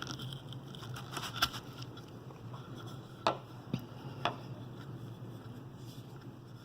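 Deepwoods Ventures spoon knife cutting shavings from dry hard maple: a few short, sharp scraping cuts, the loudest about a third and two thirds of the way through, with quieter wood-and-blade ticks between.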